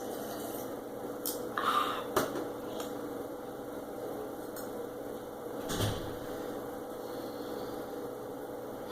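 Scattered clicks and knocks of eating from a plate, with a short clatter about two seconds in and a knock near six seconds, over a steady background hum.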